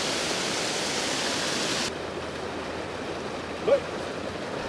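Steady rushing of running water, a hiss that cuts off abruptly about two seconds in. A quieter outdoor background follows, with one short vocal sound near the end.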